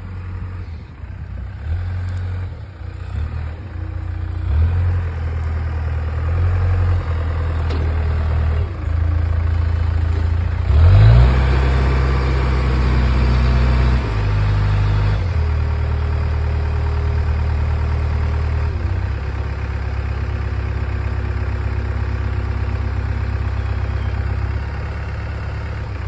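Traverse Lift telehandler's diesel engine running under load, its speed going up and down as the boom is worked, with a sharp rev-up about eleven seconds in, then settling to steady running.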